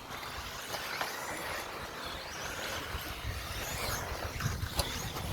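1/10-scale two-wheel-drive electric RC buggies racing on a clay track: motor whine rising and falling as the cars accelerate and pass, over tyre and drivetrain noise, with a sharp click near the end.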